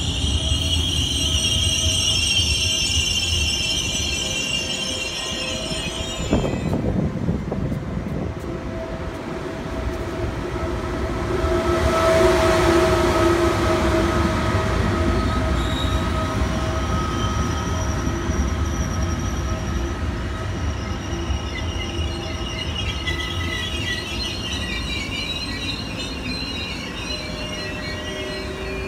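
Trenitalia regional train with an E.464 electric locomotive running slowly along the platform. High wheel squeal fills the first six seconds, ending with a single clunk. As the locomotive goes by it gives a steady electric whine that swells around the middle, and the squeal returns near the end.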